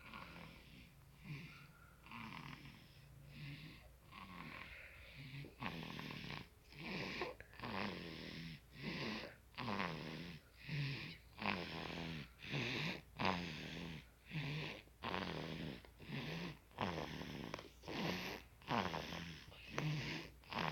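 Four-month-old baby snoring in sleep: quick, rhythmic breaths with a light buzzy rattle, about two a second, softer at first and growing louder about five seconds in.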